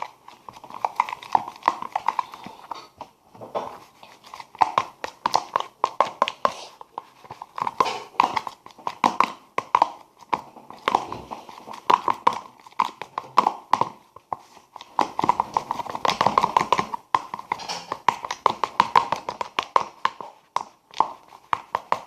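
Homemade slime mixture being stirred and squeezed by hand, giving rapid, irregular sticky wet clicks and squelches with a few brief pauses.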